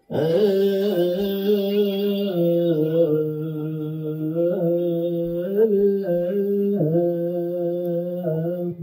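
Ethiopian Orthodox liturgical chant: one long sung phrase held near one low note, with small turns in pitch along the way, stopping just before the end.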